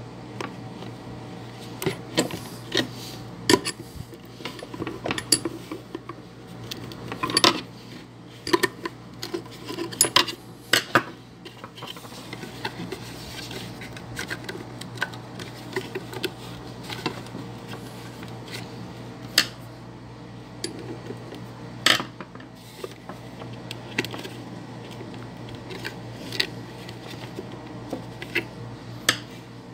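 Irregular clicks, taps and light knocks from hands working inside a homemade lampshade, handling the lamp socket and its cord, over a steady low hum.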